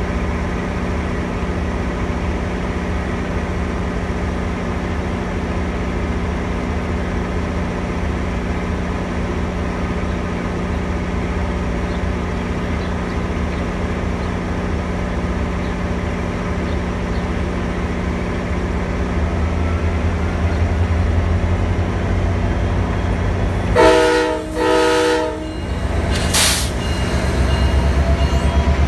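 VRE diesel locomotive running at a station with a steady engine rumble that grows louder. About 24 seconds in it gives two short horn blasts, the signal that it is releasing brakes and about to proceed, and the engine then loads up louder as the train starts to move.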